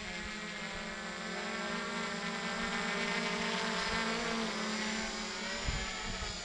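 Hexacopter's electric motors and propellers whirring in a steady, many-toned hum with slight shifts in pitch, getting louder as it comes down to hover just above the grass. A few brief low thumps near the end.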